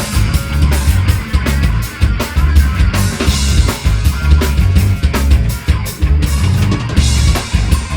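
Live heavy metal band playing: distorted guitars and bass over rapid drum-kit hits with a heavy bass drum.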